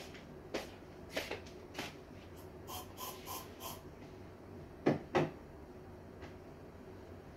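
Things being picked up and set down on a wooden desk while tidying: scattered light clicks and knocks, a quick run of four short hissing sounds about three seconds in, and two louder knocks about five seconds in.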